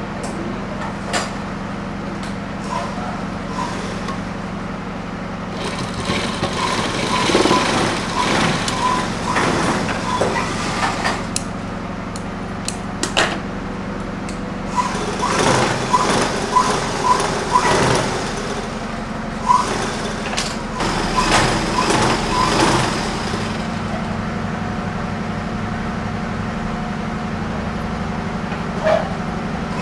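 Electric motor-driven sewing machines: a steady motor hum, with two longer runs of rapid needle clatter in the middle as cloth is stitched.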